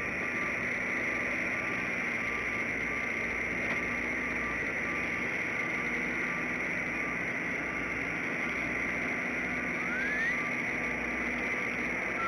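Steady outdoor background hiss, with a vehicle's reversing beeper faintly beeping at the start and again near the end. A single short rising whistle sounds about ten seconds in.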